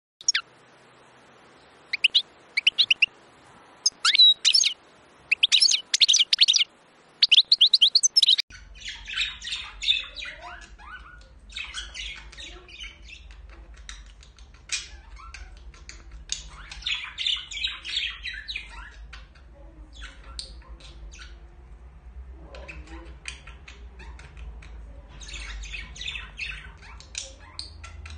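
Budgerigars calling. For the first eight seconds or so there are loud, sharp chirps in quick clusters. Then, after an abrupt change, comes a steady stream of softer chattering warble with a low hum underneath.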